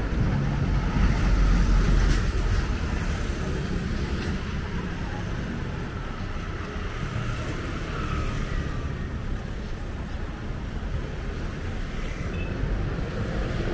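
Steady outdoor street ambience with a low traffic rumble.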